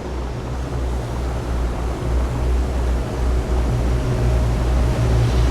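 A fishing boat's engine running under way, a steady low drone that grows slowly louder, with wind and water noise over it.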